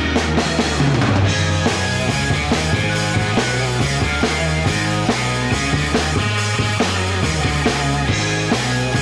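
Rock music with drums, bass and a steady beat.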